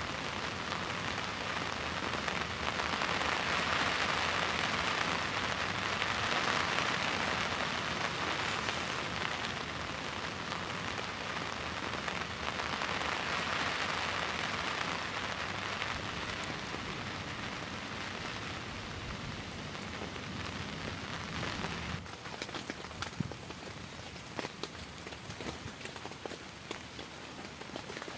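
Steady heavy rain, a dense even hiss. About 22 s in it thins out, and separate drops tick and tap.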